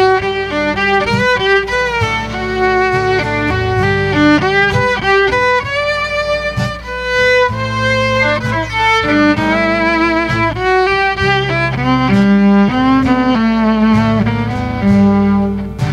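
Fiddle playing a melodic instrumental break between verses of a country ballad, with lower sustained accompaniment notes underneath.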